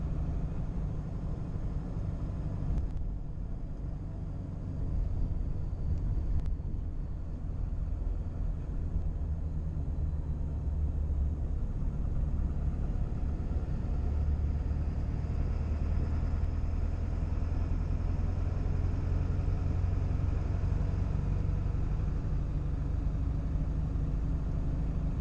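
Ford 7.3 L Powerstroke turbo-diesel V8 truck driving, heard from inside the cab as a steady low rumble of engine and road noise, a little louder from about five seconds in.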